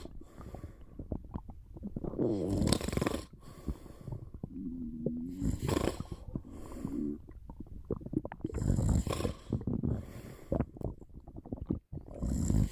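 A sleeping person snoring, one snore every three to four seconds, with a wavering gurgle of stomach rumbling between the snores in the middle.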